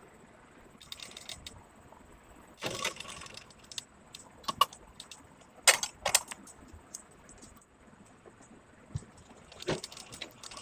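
Fabric and stiff buckram interfacing rustling and crinkling as the blouse pieces are handled and positioned under a sewing machine's presser foot, in a few short bursts, with several sharp clicks and taps in the middle.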